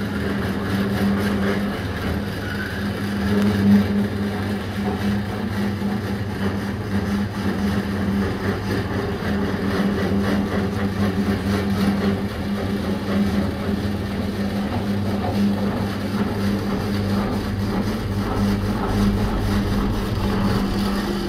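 Motor-driven cabbage shredding machine running with a steady hum, while whole cabbage heads are pushed against its cutter and sliced into fine shreds.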